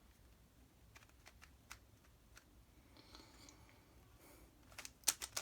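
Plastic twisty puzzle cube being turned by hand: scattered faint clicks of layers turning, then a quicker run of sharper clicks near the end.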